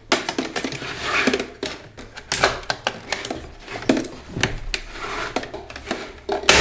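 Irregular clicks, knocks and light metallic clatter of a DeLonghi Dedica espresso machine's stainless-steel casing and internal parts being handled and fitted together during reassembly.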